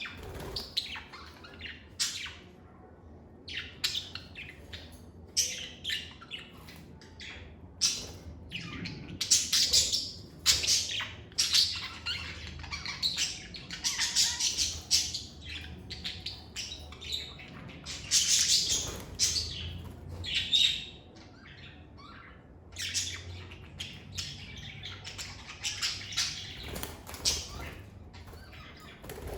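Pet lovebirds chirping and squawking: a rapid run of short, shrill high-pitched calls, at times overlapping in dense bursts.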